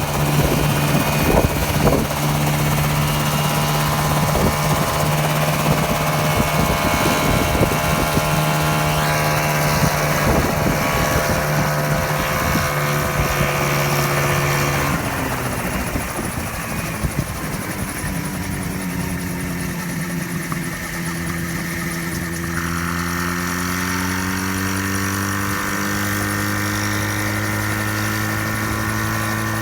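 Ultralight coaxial helicopter's engine and rotors running with a steady note. About halfway through the note drops suddenly and the sound gets quieter, then the pitch climbs slowly back up towards the end as it speeds up again.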